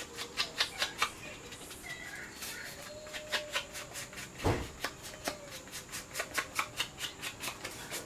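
Sponge dabbing shimmer paint along the edges of a cardstock panel: quick light taps, a few at first, then about five a second, with one heavier knock about halfway through.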